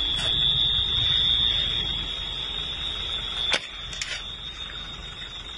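A steady high-pitched alarm tone over wind buffeting and low rumble; a sharp click about three and a half seconds in, after which the rumble drops.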